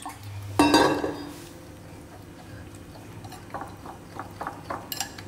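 Wire whisk stirring thin batter in a glass bowl, with light ticks of the whisk against the glass. About half a second in, one louder knock with a brief ringing tone.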